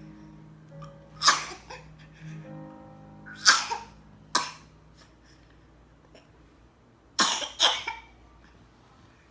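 A small child coughing: five short coughs, a single one about a second in, two close together at three and a half and four and a half seconds, and a quick pair near the end.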